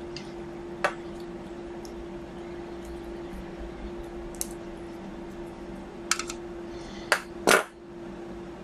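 Scattered small clicks and clinks of hands handling wires and parts inside an open stereo receiver chassis, over a steady background hum. One click comes about a second in, and a cluster near the end holds the loudest two.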